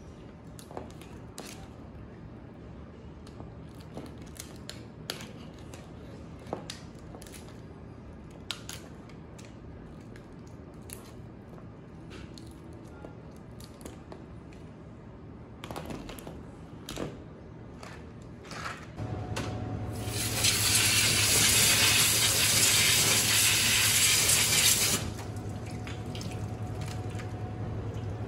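Blue crabs being handled and cleaned: scattered clicks and knocks of shells and legs on the table. About twenty seconds in, a tap runs loudly into a steel sink for about five seconds to rinse a crab, over a low steady hum that carries on to the end.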